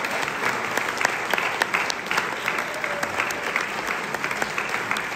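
Audience applauding: many hands clapping at once, a steady dense clatter of sharp claps.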